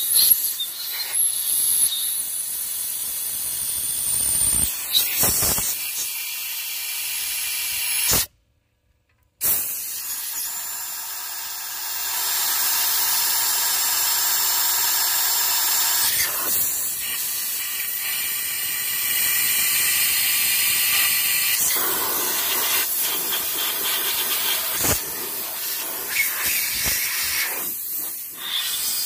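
Compressed-air blow gun hissing as it blasts air through the oil galleys of a Willys L134 engine block to clear out dirt. The hiss rises and falls as the nozzle moves from hole to hole. It breaks off into a second of silence about eight seconds in.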